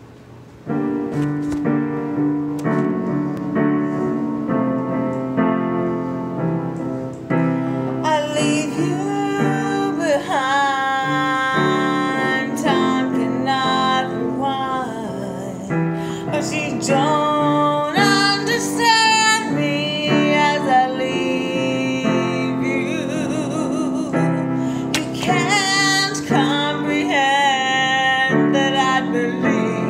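A woman singing with an instrumental accompaniment of sustained chords. The accompaniment starts about a second in, and her voice comes in about eight seconds in.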